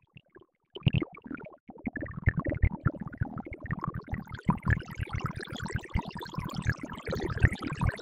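Synthesized water from a ZynAddSubFX AdSynth patch: resonant bandpass-filtered noise played as notes on a keyboard, making a dense stream of short wet blips like a trickling stream of droplets. Different pitches give different droplet sizes. The trickle starts about a second in and sounds much like real water.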